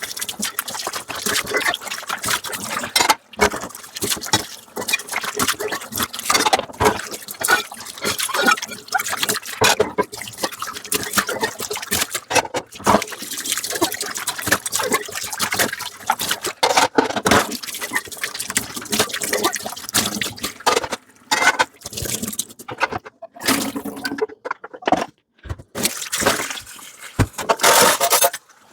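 Dishes being washed by hand at a kitchen sink: tap water running and splashing over the dishware, with the clatter and clink of plates and utensils. The water and clatter stop briefly a few times.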